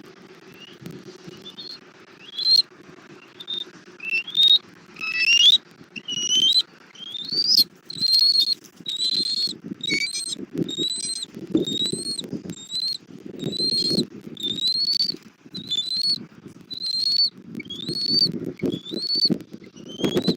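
Bald eagle calling: a long series of high, rising whistled chirps, about one a second, over low rustling and wing flapping.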